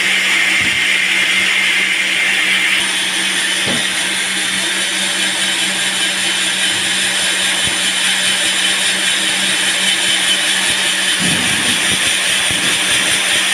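Sawmill band saw running steadily as it cuts a teak log: a loud, even high-pitched hiss over a constant low hum.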